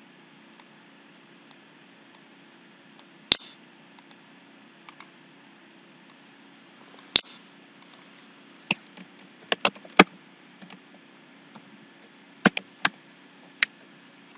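Computer mouse clicks and keyboard keystrokes: scattered single clicks, a quick run of key presses about nine seconds in and a few more near the end, over a faint steady hum.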